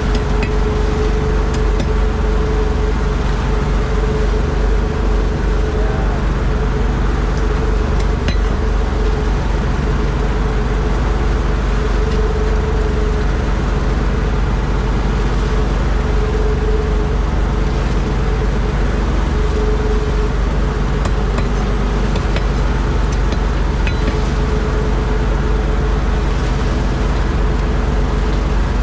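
A boat's engine running steadily at constant speed, a loud, even drone with a steady hum and no change in pitch.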